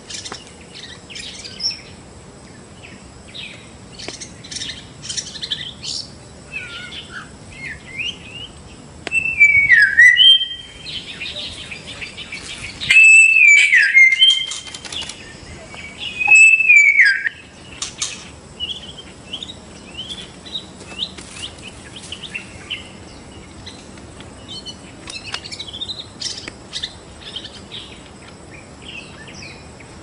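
White-rumped shama singing: a varied run of short whistles, chirps and clicks, with three louder, fuller phrases about ten, thirteen and sixteen seconds in.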